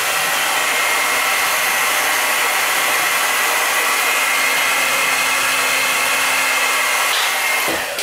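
Hand-held hair dryer running steadily with a rush of air and a steady high whine, then stopping near the end.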